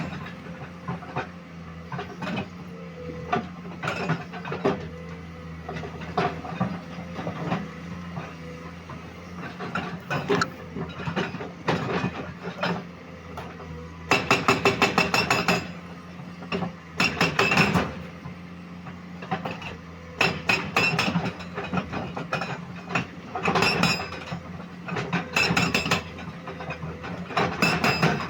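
Komatsu PC210 excavator's diesel engine running steadily, with repeated bursts of rapid metallic clattering.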